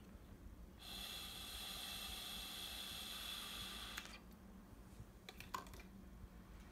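A long exhale of warm, humid breath blown through a flexible straw onto a humidity sensor: a steady breathy hiss starting about a second in and lasting about three seconds. A few sharp clicks follow near the end.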